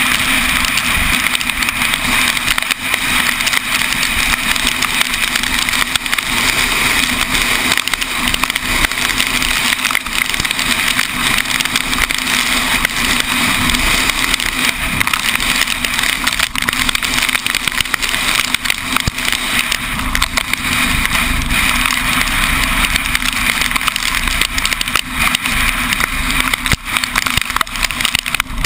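Steady rush of wind and road noise from a moving vehicle, picked up by a camera housing mounted outside on the vehicle, with frequent light ticks through it.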